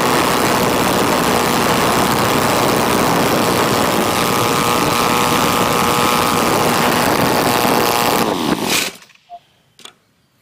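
DLE-222 four-cylinder two-stroke gas RC aircraft engine idling steadily at about 3,600 rpm with its propeller turning, then stopping abruptly about eight and a half seconds in.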